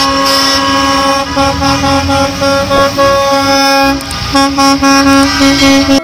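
School bus horns honking in long held blasts with brief breaks, dropping back for about a second past the middle, over a low rumble of traffic.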